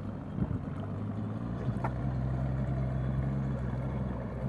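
Small motorboat's outboard motor running under throttle, heard across the water as a steady low hum that comes up about a second and a half in.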